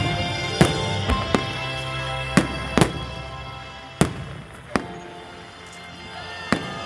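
Fireworks shells bursting in the sky: about eight sharp bangs, irregularly spaced, a fraction of a second to nearly two seconds apart. Background music with sustained notes plays throughout.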